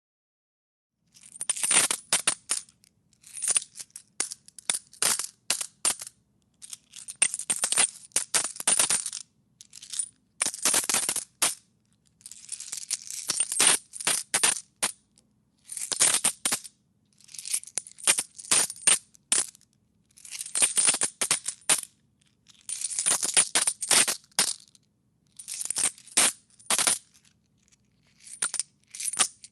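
A handful of metal coins being tossed and jostled in a hand, clinking in repeated bunches of quick, bright clicks about every second or two. It starts about a second in.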